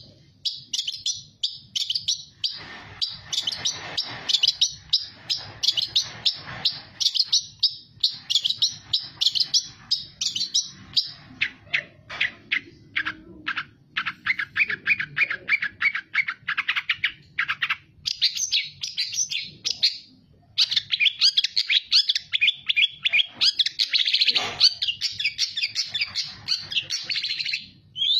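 A caged long-tailed shrike sings a fast, varied stream of high chirps and chattering trills, with only a few brief pauses. Its song is full of phrases mimicked from other birds.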